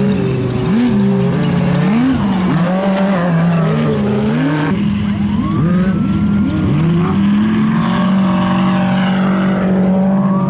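Off-road race buggy engines revving up and down as the vehicles drive the dirt course, over a steady low engine drone. The sound changes abruptly about halfway through.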